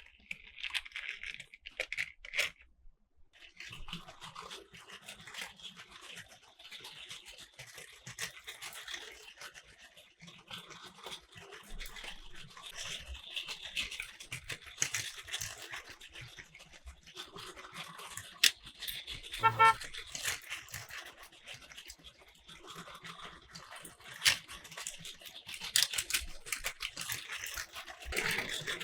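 Battery-powered Plarail toy train and plastic toy track running: a steady small-motor buzz under a busy, uneven clatter of little clicks and rattles as plastic wheels and toy cars move along the layout. A brief pitched toy sound effect cuts in once, about two-thirds of the way through.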